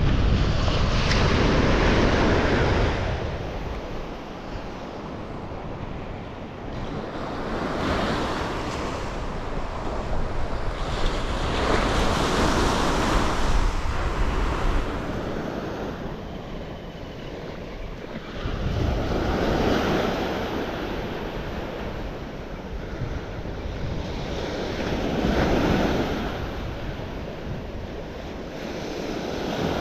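Sea waves breaking on a beach, the wash swelling and fading about every six seconds. Wind buffets the microphone in the first few seconds.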